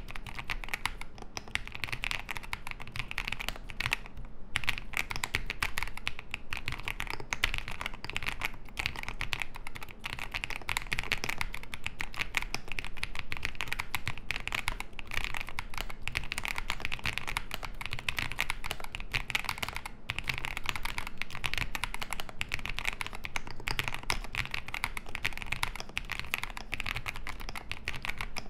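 Fast, continuous typing on a gasket-mounted 40% mechanical keyboard (Epomaker TH40) fitted with Epomaker Wisteria switches: a dense run of key clicks, with a brief pause about four seconds in.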